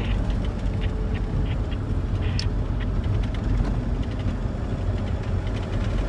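Steady low rumble of engine and tyre noise inside a vehicle driving along an asphalt highway, with a few faint ticks.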